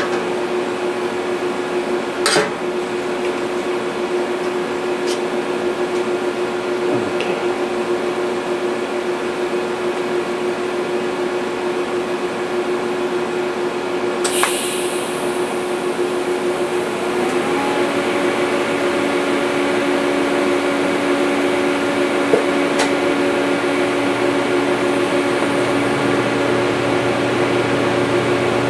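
MIG welder at work laying a tack weld: a steady hum and hiss with a few sharp clicks, about two seconds in and again about fourteen seconds in. The hum changes pitch a little past halfway.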